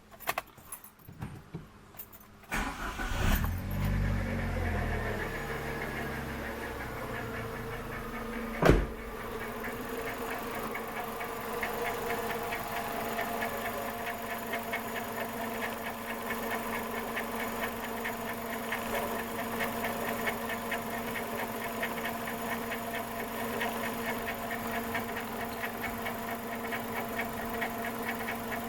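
JAC J3 Turin's 1.4 VVT engine starting about two and a half seconds in, then settling to a steady idle with a fast, even crackling tick, which the mechanic takes for a noisy pulley or bearing in the belt drive. A single sharp knock comes a few seconds after the start.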